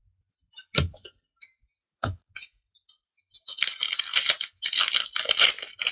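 Two short knocks, then a trading-card pack's foil wrapper being torn open and crinkled, a dense crackling that starts about three seconds in.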